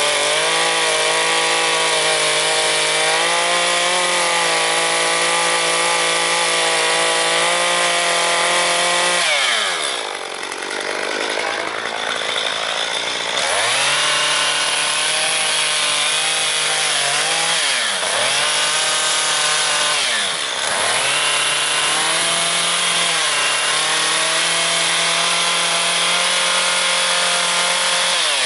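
Gas chainsaw running at high revs as it carves into a log. About ten seconds in the throttle drops off for a few seconds, then the saw revs back up, with two brief dips in revs later on.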